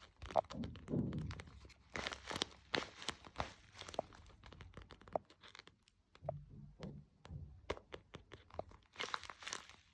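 Paper being handled: crinkling and rustling with short tearing sounds and light taps, in uneven bursts.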